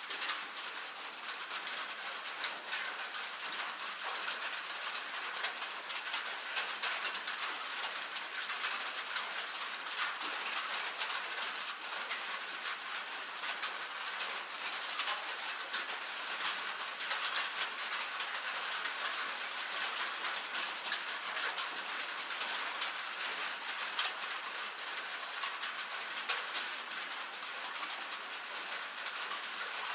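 Light rain pattering on a metal roof: a steady, dense stream of small, sharp drop ticks.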